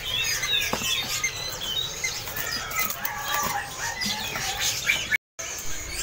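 Many caged songbirds chirping and whistling over one another, a dense chorus of short calls. The sound cuts out completely for a split second about five seconds in.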